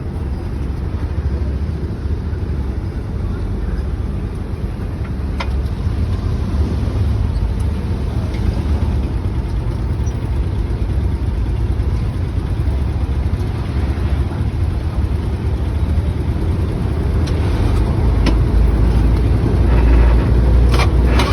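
Engine running with a steady low rumble, growing a little louder over the last few seconds, with a few faint clicks.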